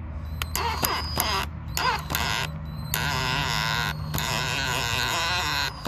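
Cordless drill driving a screw into a wooden board. The motor whines in a few short bursts, then runs for about three seconds as the screw sinks in, and cuts off suddenly near the end.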